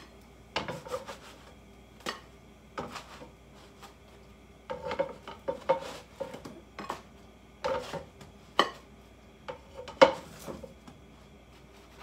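A cooking utensil scraping and clinking against a pan and a plate as cooked French toast is lifted out onto the plate: irregular scrapes and knocks, the sharpest about ten seconds in.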